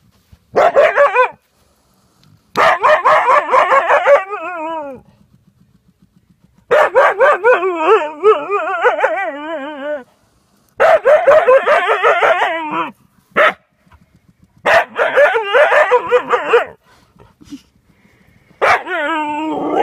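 Siberian husky yapping: about six bouts of quick, wavering, high-pitched yips, each one to three seconds long, with short pauses between.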